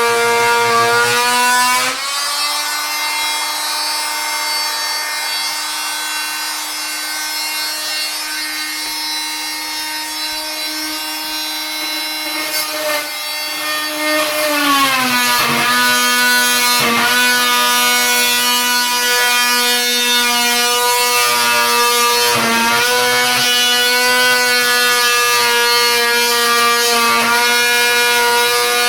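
Oscillating multi-tool running with a steady high whine as its blade cuts a notch into a corroded oven screw head. Its pitch steps up a couple of seconds in, slides back down about halfway through as the blade bites, and a few short clicks follow.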